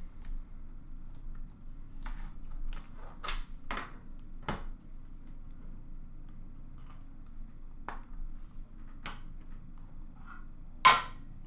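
Handling noise from a small cardboard card box and a clear plastic card holder on a glass counter: scattered sharp clicks, taps and brief rustles, the loudest click near the end.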